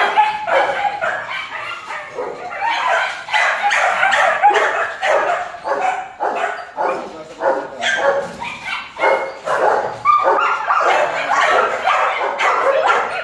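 Several German shepherd puppies barking and yipping over and over, their short calls overlapping with hardly a break.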